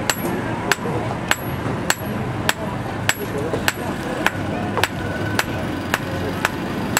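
Blacksmith's hammer striking steel on an anvil in a steady rhythm, about one and a half blows a second, each with a short metallic ring: a knife blade being forged.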